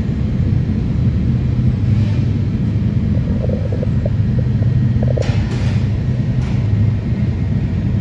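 Steady low rumble throughout, with brief rustling swishes about five seconds in and again shortly after.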